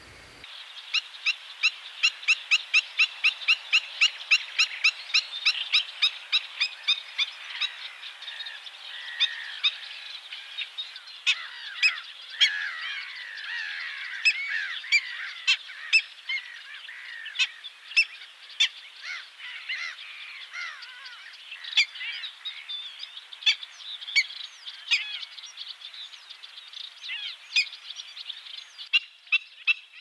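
Black-winged stilts calling with sharp, yapping notes. The calls start about half a second in as a fast even run of about three or four a second, then turn into a looser jumble of overlapping calls.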